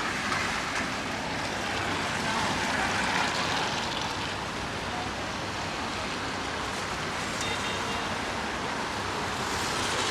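Steady hiss of a rain-soaked city street: rain noise mixed with tyres on wet road, swelling slightly a couple of seconds in as traffic passes.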